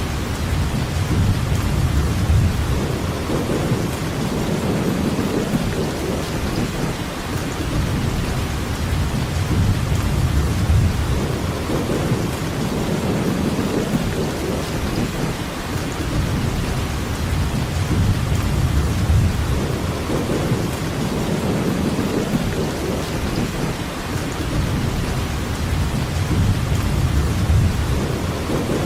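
Steady, heavy rainfall hissing evenly. Underneath it, a low rumble swells and fades about every eight seconds.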